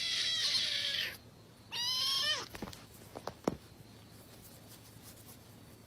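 A cat meowing: a long drawn-out meow that ends about a second in, then a second, shorter meow that falls in pitch at the end. It is followed by a few light knocks.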